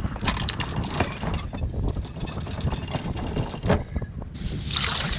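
Wind buffeting the microphone aboard a boat under way, a dense low rumble with gusty spikes. A thin steady high tone sounds through the middle, and a louder hiss rushes in near the end.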